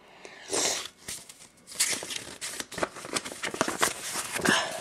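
Cardboard shipping box being handled close to the microphone: a rustle about half a second in, then crackling with many small clicks and taps.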